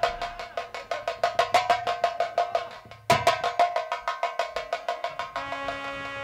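Live stage percussion playing a fast, even roll of pitched drum strokes, several a second, as accompaniment to a stage fight. It breaks off briefly about three seconds in, then starts again. Near the end a held keyboard chord joins it.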